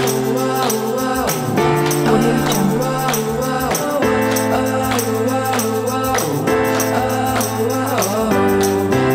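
Background music: held chords over a steady percussion beat.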